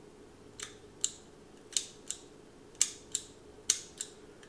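Japanese-made automatic petrol lighter worked four times by its lever, each press and release giving a pair of sharp mechanical clicks about a third of a second apart. It is not sparking well; the owner takes it that the flint wheel has gotten wet with fuel.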